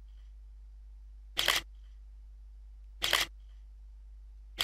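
Camera shutter firing repeatedly while photos are taken, one shot about every second and a half, each a quick double click.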